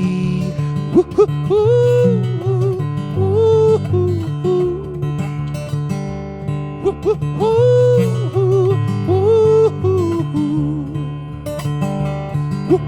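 Acoustic guitar strumming chords, with a wordless vocal melody gliding between notes over it.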